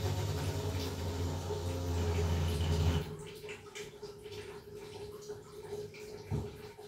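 Water gushing with a low rumble, cutting off about three seconds in; then a few light knocks over a faint steady hum.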